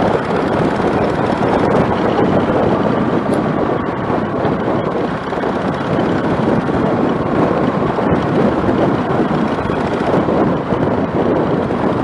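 Motorcycle riding at speed: wind rushing over the microphone with the engine running underneath, a steady dense noise throughout.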